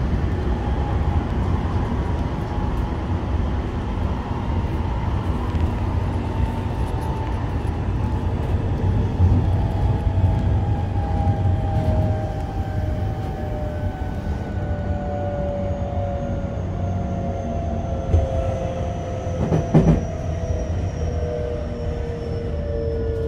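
JR West 225 series electric train heard from inside a motor car: the whine of its Hitachi IGBT inverter and traction motors slides steadily down in pitch as the train slows under braking, over a constant low rumble of the wheels on the rails. Two short knocks come near the end.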